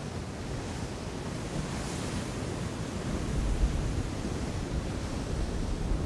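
Sea waves surging and washing against rocky cliffs, with a swell of surf wash about two seconds in. Wind buffets the microphone in low rumbles partway through and near the end.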